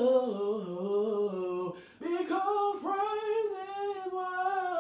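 A man singing a gospel song solo and unaccompanied, in long held notes that waver in pitch, with a short breath about two seconds in.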